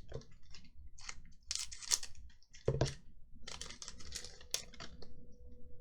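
Magic: The Gathering cards being handled and set down onto piles on a table: an irregular run of light clicks, taps and sliding rustles. A faint steady hum comes in about halfway through.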